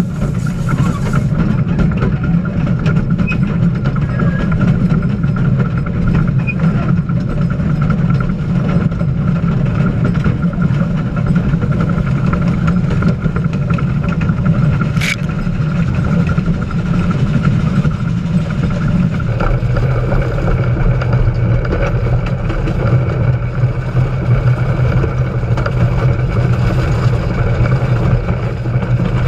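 A small steam locomotive running, heard close to its wheels and running gear: a loud, steady rumble of wheels on rail mixed with wind noise. There is one sharp click about fifteen seconds in, and about nineteen seconds in the rumble turns deeper and steadier.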